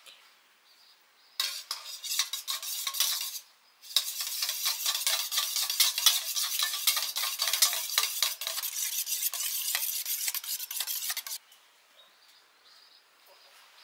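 Metal utensil stirring and scraping noodles in a cooking pan, a short bout and then a longer one of about seven seconds that cuts off near the end.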